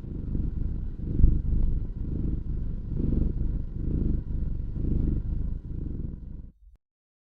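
Domestic cat purring: a low, rapidly fluttering rumble that swells about once a second with each breath, then stops abruptly near the end.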